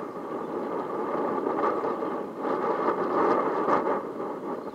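Boeing 737 airliner heard from a distance on final approach with its landing gear down: its jet engines give a steady, noisy rumble that grows a little louder past the middle.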